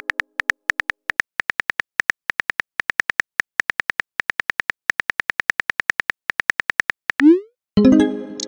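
Synthetic phone-keyboard tap clicks, about five a second with short pauses, as a message is typed letter by letter. About seven seconds in, a quick rising swoosh marks the message being sent, followed near the end by a short chime that rings and fades.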